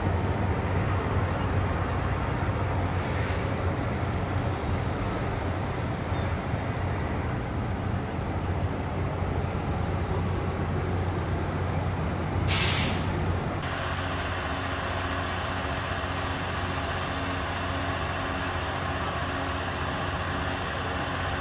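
Steady hum of a stationary passenger train at the platform, with a short burst of air hissing from its air system about twelve seconds in. Just after the hiss the hum changes, and a few steady tones come in.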